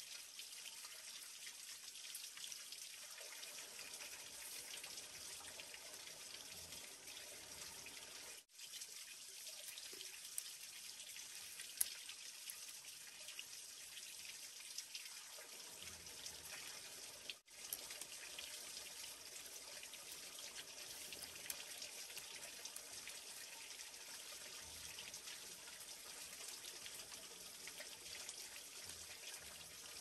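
Steady, faint hiss of running water, with a few light clicks of thin bamboo strips being laid and woven by hand. The sound cuts out very briefly twice.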